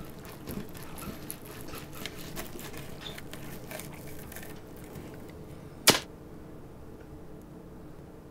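Knife and fork cutting meat on a metal platter: a run of small clicks and scrapes from the cutlery, then one sharp clink about six seconds in, over a low steady hum.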